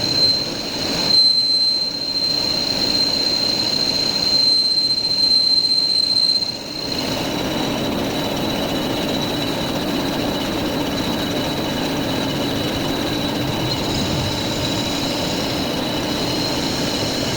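Metal lathe turning steel, the cutting tool on the work giving a steady high squeal over the machine's running noise. The lower cutting noise eases twice, about a second in and again around the middle.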